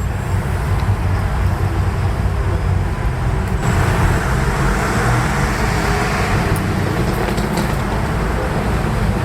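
Steady low rumble of vehicle engines and traffic in a busy urban station area, with a louder rushing noise coming in about four seconds in and swelling for a couple of seconds.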